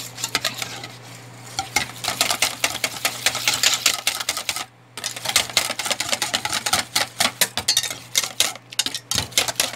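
Wire whisk beaten fast by hand in a stainless steel bowl, its tines ticking rapidly against the metal as it whips a thick wet cocoa and cream mixture, with a brief pause about halfway.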